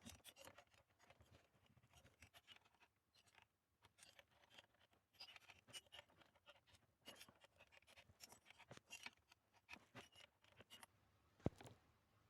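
Faint, irregular small clicks and scrapes of chainsaw parts and tools being handled during piston work, with one sharper click near the end.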